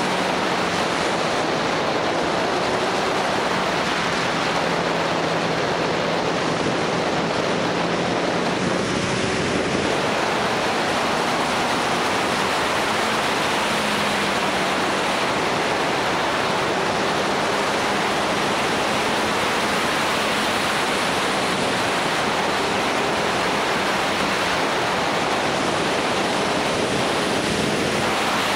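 Steady rush of wind over the microphone of a moving motorcycle, with the engine's note faintly underneath, drifting slightly up and down in pitch.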